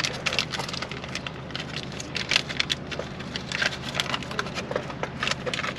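Plastic crinkling and clicking as the shrink-wrap seal and cap of a plastic spice-shaker bottle are peeled and twisted open: a run of small, irregular clicks over a low steady hum.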